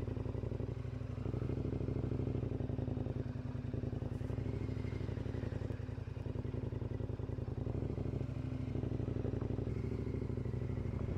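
KTM 1090 Adventure R's V-twin engine running steadily at low revs while the motorcycle rolls slowly.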